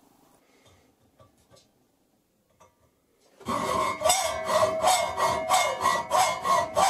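Hacksaw cutting aluminium angle clamped in a bench vise: quick, even rasping strokes with a ringing tone under them, starting about halfway in after a few faint clicks.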